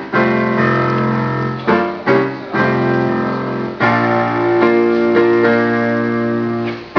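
Piano-sound keyboard played through a PA system: full chords over a held bass line, with a new chord struck every second or so. The sound system has a big echo.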